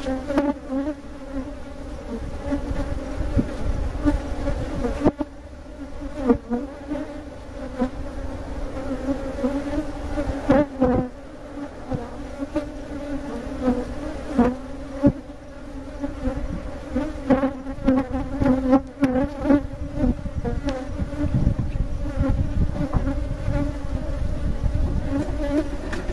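Honeybees buzzing around an opened wooden hive, a steady hum throughout. Scattered sharp knocks of the wooden frames and hive lid being handled cut through it, the clearest about 5, 11, 15 and 19 seconds in.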